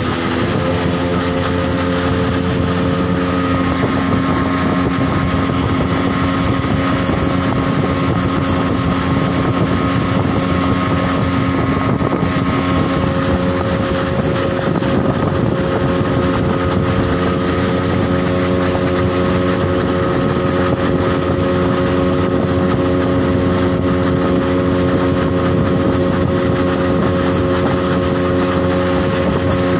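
Outboard motor of a small open boat running steadily under way, its even drone shifting slightly in pitch about halfway through, over a hiss of water and wind.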